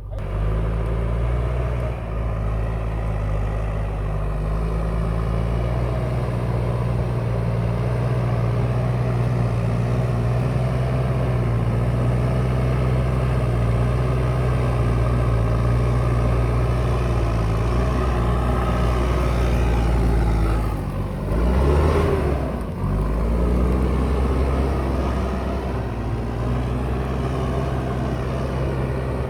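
JCB 3DX backhoe loader's diesel engine running steadily under working load. About two-thirds of the way in, the revs briefly drop and climb back.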